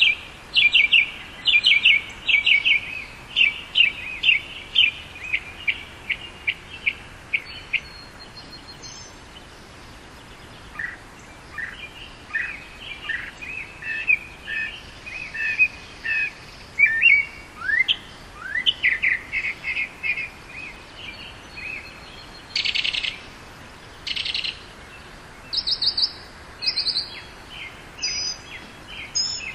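Northern mockingbird singing: a long run of short notes, each kind repeated many times in quick succession before switching to a new one. A short buzzy burst comes about two-thirds of the way through, and higher notes follow near the end.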